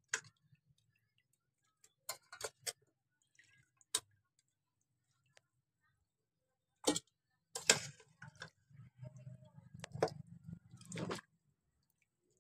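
Metal kitchen tongs clicking and clinking against aluminium pots and a bowl as boiled chicken pieces are lifted out of the broth: scattered sharp clicks at irregular intervals, with a low rumble of handling under them in the second half.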